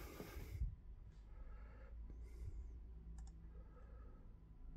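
A brief rustle, then a couple of sharp computer mouse clicks about three seconds in, over a faint steady low hum.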